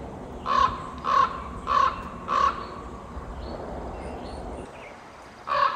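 A crow cawing four times in an even series, about two-thirds of a second apart, then starting another series right at the end.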